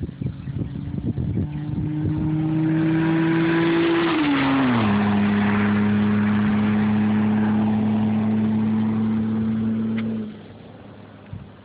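Hyundai Sonata V6 engine driving past under power: the engine note climbs, drops in pitch as the car goes by about four and a half seconds in, then holds steady before cutting off suddenly near the end. There are low thumps in the first two seconds.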